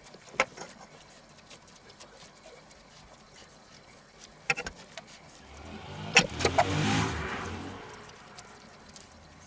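Soft handling noises and a few sharp clicks as gloved hands press a moist minced pretzel, bacon and chanterelle filling onto a bacon-lined ham roast on a wooden board. About six seconds in, a low rumble swells and fades over two seconds.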